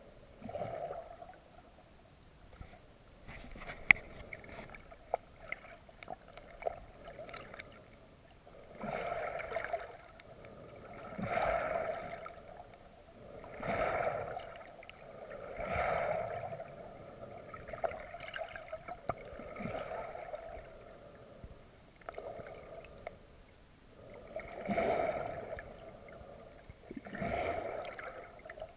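Underwater river-water noise picked up through a waterproof action-camera housing, swelling and fading in a regular rhythm about every two seconds, with a few sharp clicks near the start.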